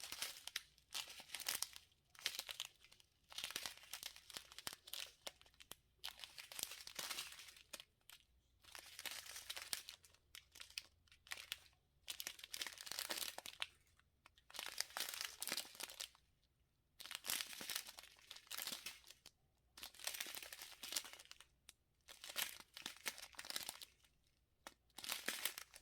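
Small plastic packs of diamond-painting drills crinkling as they are handled and sorted, in short rustles every second or two with brief pauses between.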